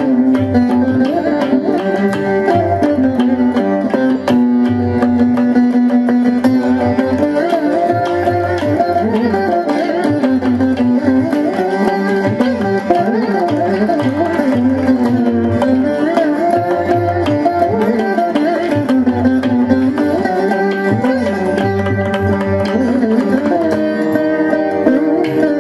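Carnatic veena music: a plucked veena melody with sliding, bending notes over a hand-drum accompaniment.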